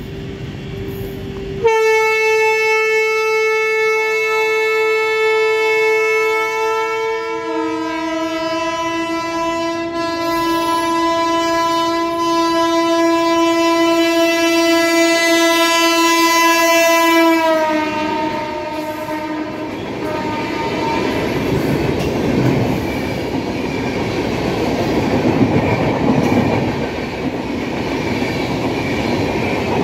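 Duronto Express locomotive's horn sounding one long blast of about sixteen seconds, its tones shifting partway through and then dropping in pitch as the locomotive goes by. The express coaches then rush past with loud, steady wheel-on-rail noise and clickety-clack.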